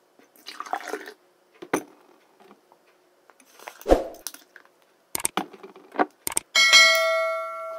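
A long metal stirring spoon knocking against a tall drinking glass: a few soft knocks and a thud, then a clear strike near the end that sets the glass ringing for about a second.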